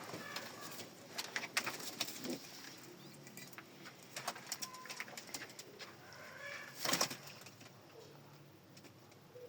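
Domestic pigeons cooing softly, with scattered sharp clicks and scratches throughout and a louder burst of noise about seven seconds in.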